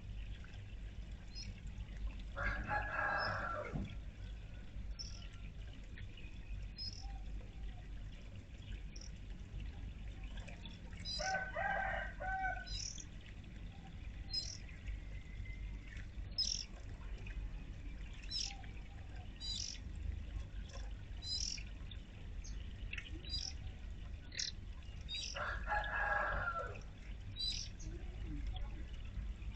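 A rooster crowing three times, each crow about a second and a half long, while small birds chirp in short, high notes throughout, over a steady low background noise.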